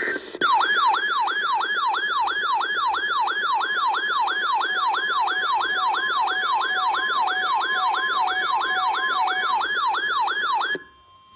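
Electronic siren-like alert tone: a pitch that falls quickly, over and over, about three times a second, held for about ten seconds before cutting off abruptly.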